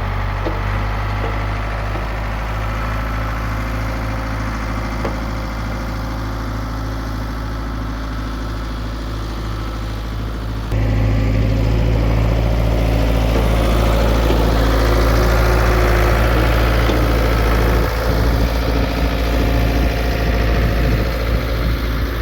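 Diesel backhoe engine running steadily, its fuel injection pump freshly rebuilt. About eleven seconds in it abruptly gets louder, and near the end the level goes uneven.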